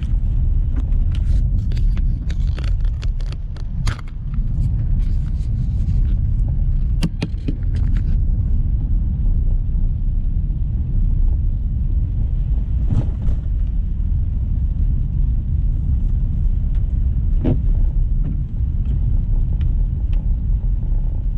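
Car driving, a steady low rumble of engine and road noise, with a flurry of sharp clicks and knocks in the first eight seconds and a couple of single knocks later.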